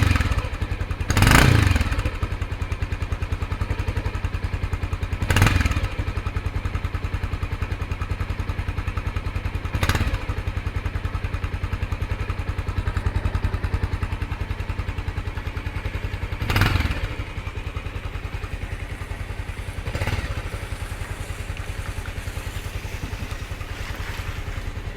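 Bajaj Avenger 200's stock single-cylinder engine and exhaust idling steadily, with about five short throttle blips spread through.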